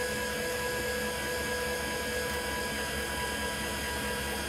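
Electric landing gear motor and screw drive of a 2007 Keystone Montana fifth-wheel trailer running the legs: a steady mechanical whine with a few held tones, winding down with a falling pitch at the very end. Freshly greased, it runs nice and smooth.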